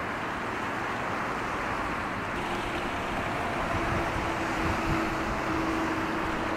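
Steady outdoor wash of wind and waves, joined a little after the midpoint by a faint, steady engine drone.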